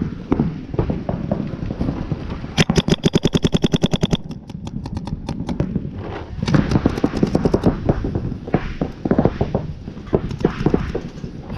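Paintball marker firing rapid strings of shots: one long, fast string of more than a second about two and a half seconds in, then further shorter bursts, with other irregular pops and hits around them.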